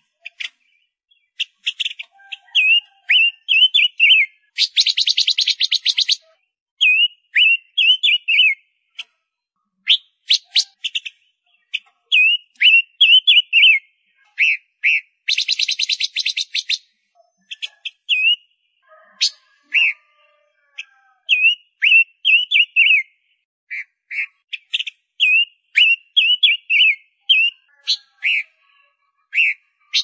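Gouldian finch calling and singing: runs of short, quick chirps broken twice by a dry buzzing rattle lasting over a second.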